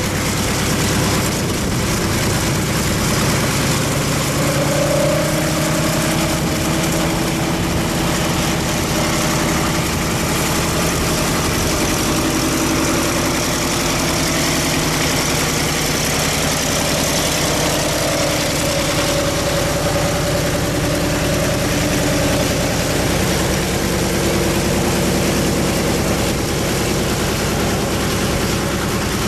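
Vought F4U Corsair's Pratt & Whitney R-2800 18-cylinder radial engine running steadily at low taxi power, with the propeller turning. The engine note wavers slightly in pitch.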